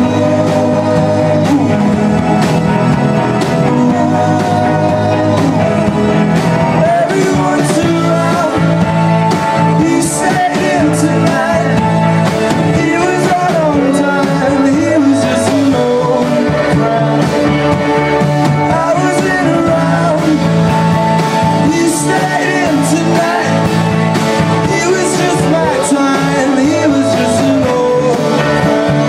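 Indie rock band playing live: electric guitars, bass guitar, keyboard and drums, with a male lead vocal singing over the band from about six seconds in.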